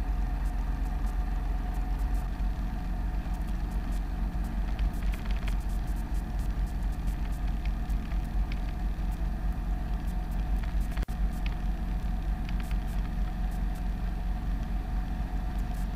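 Robinson R22 helicopter's engine and rotor heard from inside the cabin, a steady drone in flight.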